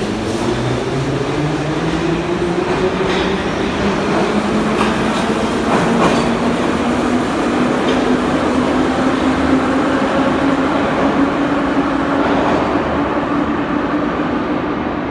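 Em-series (81-501/502/503) metro train accelerating out of a station. The traction motor whine rises slowly in pitch over a steady rumble of wheels on rail, with a few sharp wheel clacks over rail joints near the middle.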